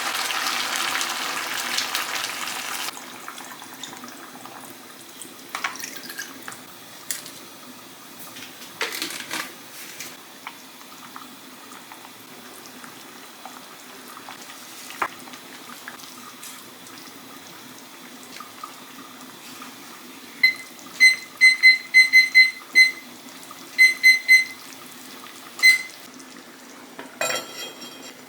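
Kitchen tap water running for the first few seconds and then shut off, followed by light clicks and knocks of utensils. About two-thirds of the way in, a run of about ten short electronic beeps in quick clusters, like a kitchen appliance's touch panel being set.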